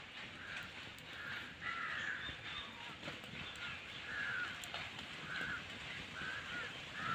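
A crow cawing over and over, short harsh calls roughly once a second.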